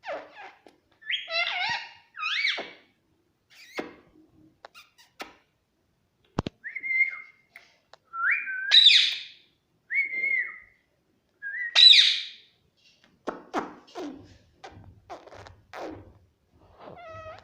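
Pet parrot calling and whistling: a series of short calls that glide in pitch, the loudest two rising whistle-like calls about halfway through and about two-thirds of the way in, with soft clicks scattered between them.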